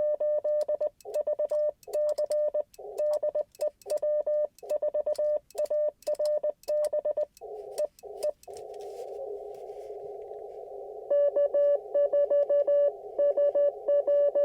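Morse code from an Icom IC-705 ham radio's speaker: a single steady beeping tone keyed in quick dots and dashes with silent gaps between. It stops about eight seconds in, leaving the receiver's hiss through a narrow CW filter. About three seconds later a louder keyed tone of the same pitch comes in over the hiss, a station answering in Morse.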